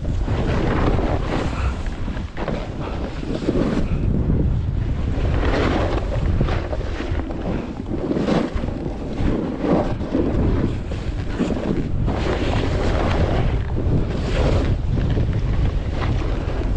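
Wind buffeting the microphone of a skier's camera during a fast run, with a swell of snow hiss from the skis roughly every second and a half as they carve turns through soft powder.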